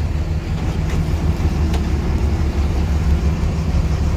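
A boat's engine running with a steady low rumble.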